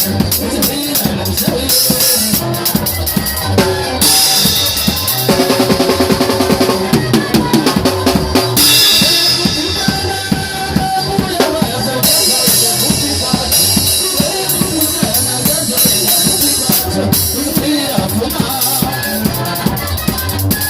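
Music driven by a drum kit beat, with bass drum and snare under other pitched instruments. Bright cymbal playing comes in for a few seconds at a time, twice.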